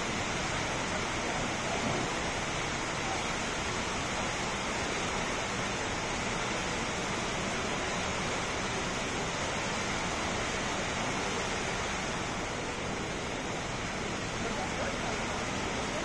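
Steady splashing hiss of water falling from a computer-controlled synchronized waterfall into its round basin.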